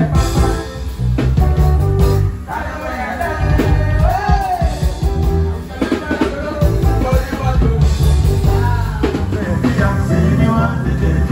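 Live band music: a man singing into a microphone over electric guitar and drums.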